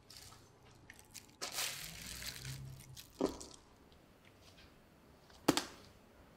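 Handling noises around a table: a crinkling rustle of about a second and a half, then two sharp knocks of objects being set down, about two seconds apart, the second the louder.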